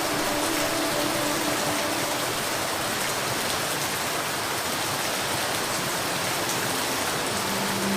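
Steady rain falling: an even, continuous hiss with scattered drop ticks.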